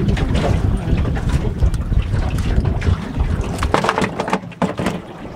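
Wind buffeting the microphone on a small boat at sea, a heavy low rumble. About four seconds in the rumble drops and a few sharp knocks and clatters follow.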